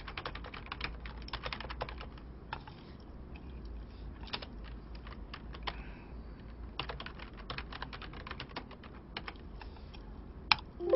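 Typing on a computer keyboard: short keystroke clicks come in irregular runs with brief pauses between them, over a faint steady low hum.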